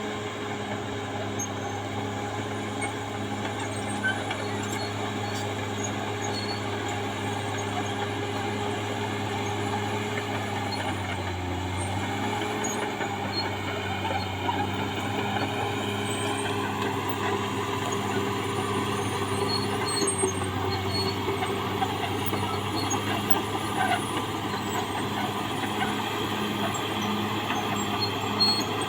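Caterpillar D6R XL bulldozer's diesel engine running steadily, with a whining note that rises in pitch about halfway through.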